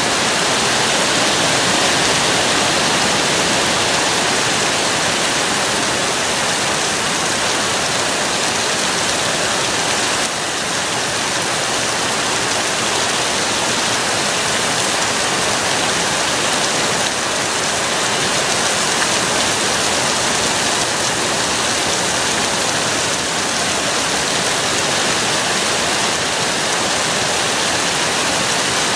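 Heavy thunderstorm rain pouring steadily, a dense, even rush of water without a break.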